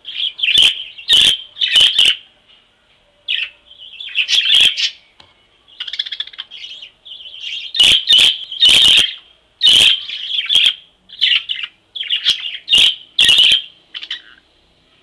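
A group of budgerigars chirping and chattering in quick bursts, with loud sharp chirps cutting through the chatter and short pauses between bursts.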